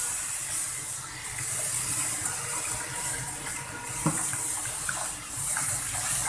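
Kitchen tap running, water spraying through a metal mesh range-hood grease filter and splashing into a stainless steel sink as the filter is rinsed off; a light knock about four seconds in.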